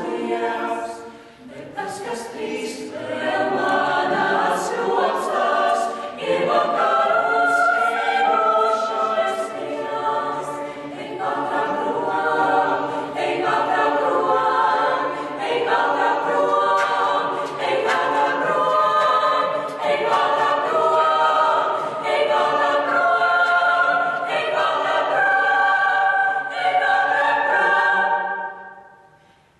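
Mixed-voice school vocal ensemble singing unaccompanied in several parts. The singing breaks off briefly about a second and a half in and dies away near the end.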